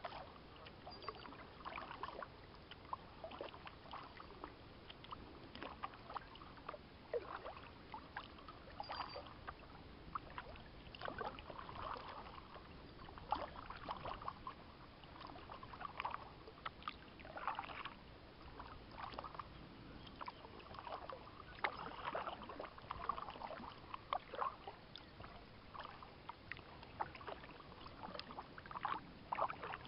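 Kayak being paddled on calm water: the paddle blades dipping and splashing in a steady rhythm, about one stroke every second or two.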